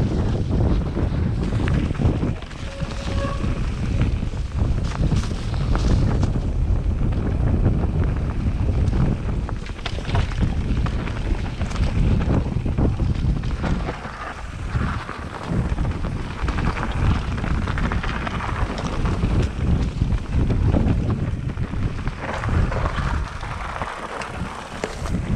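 Mountain bike riding fast down a dirt forest trail: wind buffeting the handlebar-mounted camera's microphone over a steady rumble and rattle of tyres over dirt and stones.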